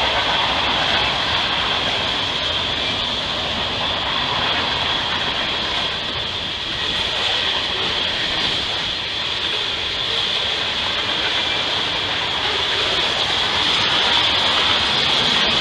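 Freight train of boxcars and tank cars rolling steadily past a grade crossing: a continuous rumble of steel wheels on rail with a steady high-pitched hiss over it.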